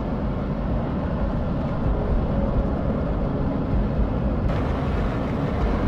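Steady, noisy rumble of an erupting volcanic crater venting a billowing ash plume.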